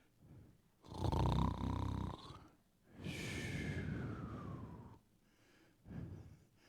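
A man imitating a snore into a microphone: a loud rasping snore on the in-breath, then a whistling out-breath that slides down in pitch.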